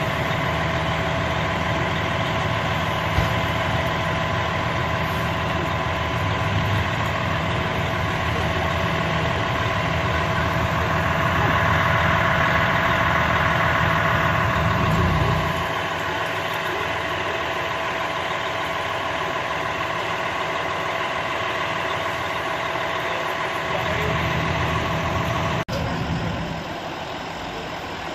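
Fire trucks' diesel engines idling, a steady low rumble with a steady whine above it. The rumble swells for a few seconds in the middle, fades out about halfway through and comes back briefly near the end.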